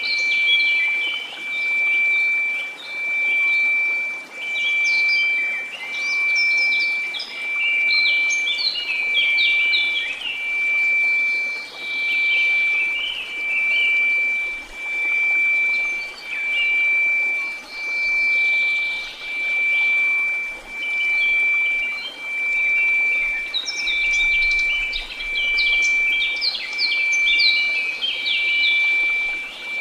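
A steady high 2334 Hz tone mixed with a hiss of white noise, the whole swelling and fading in an even slow pulse about every second and a half, with birds chirping and singing over it in clusters.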